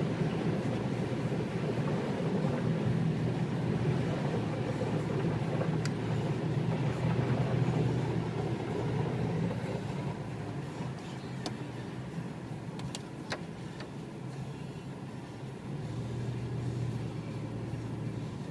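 Inside a car driving through a flooded street: a steady rushing of tyres through standing water along with road and engine noise, a little quieter from about ten seconds in as the water thins.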